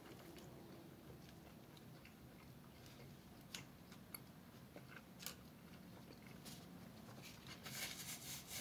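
Faint sounds of a person chewing a mouthful of burrito, with a few soft clicks of the mouth. A light rustling comes near the end.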